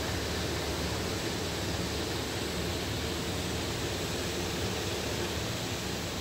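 Magnum Gravity pre-roll centrifuge running at full speed: a steady rush of air from the spinning rotor over a low motor hum.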